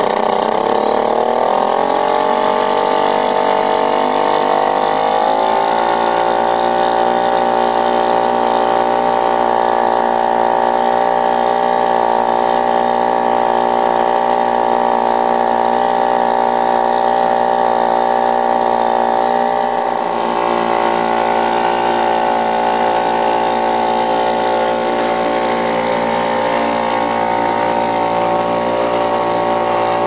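1972 British Seagull WSPC single-cylinder two-stroke outboard motor running under way. Its pitch drops over the first five seconds or so, then holds steady, a little quieter in the last third.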